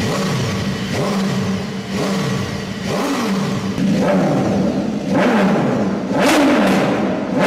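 BMW S1000RR inline-four sportbike engine, stationary, blipped repeatedly by hand: the revs rise and fall back to idle about once a second over a steady idle.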